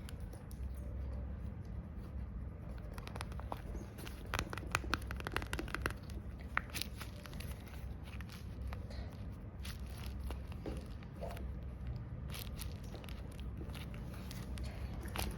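Paper from a homemade paper blind bag crinkling and tearing as it is handled and opened, in runs of sharp crackles about four to seven seconds in and again near the end, over a steady low hum.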